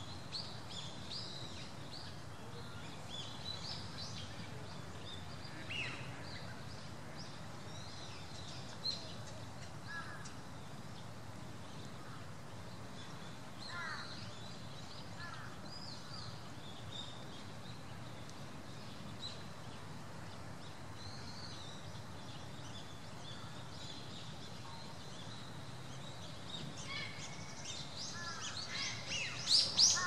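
Wild birds chirping and calling now and then, short high-pitched notes over a steady low background rumble, with a few lower falling calls in between. Near the end, a quick run of louder calls.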